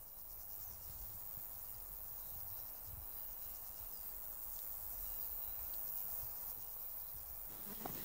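Faint woodland ambience: a soft insect buzz over a low, steady rumble.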